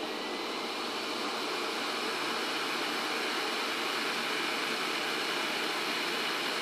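Three-phase brushless spindle motor from a Liteon DVD writer spinning a bare DVD at high speed, a steady whirring rush of air and motor noise. It grows a little louder over the first couple of seconds as the motor is sped up toward about 12,000 RPM, then holds steady.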